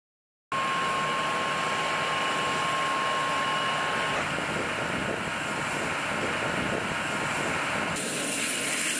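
Steady, loud mechanical running noise of a military air-defence vehicle's engine and power unit, with a high steady whine. It cuts in abruptly about half a second in, the whine drops out around four seconds, and the sound changes near the end.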